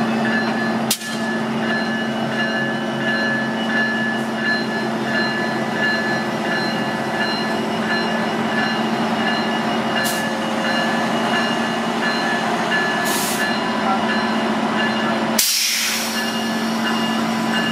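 Diesel commuter-train locomotive moving off slowly: a steady engine drone with a low hum and several held whining tones above it. A few short sharp bursts of noise break in, the loudest a hiss near the end.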